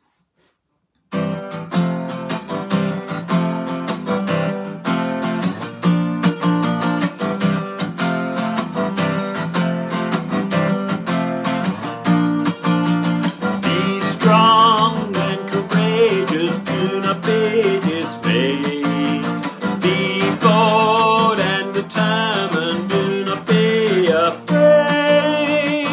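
Acoustic guitar strummed in steady chords, starting about a second in. About halfway through, a man's voice comes in singing along over the guitar.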